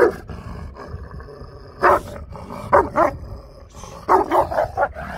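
Turkmen alabai (Central Asian Shepherd dog) barking: single barks at the start, about two seconds in and near three seconds, then a quick run of about five barks in the last second.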